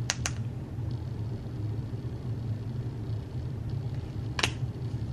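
A few sharp plastic clicks: two in quick succession at the start and one more about four and a half seconds in, as press-on nail tips are pulled off their backing card. A steady low hum runs underneath.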